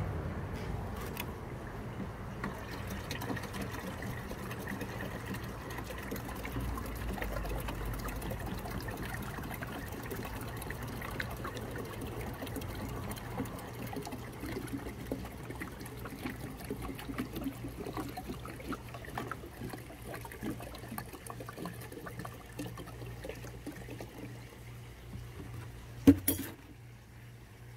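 Liquid poured steadily from a plastic gallon jug into a plastic watering can, filling it. Near the end there is one sharp knock, the loudest sound here.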